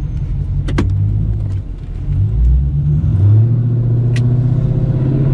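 Dodge Challenger R/T's 5.7 L Hemi V8 running through a near-straight-piped exhaust (shorty headers, cats and X-pipe, no mufflers or resonators), a deep rumble. The pitch climbs about two seconds in, then holds steady. Two sharp clicks come about a second in and near the end.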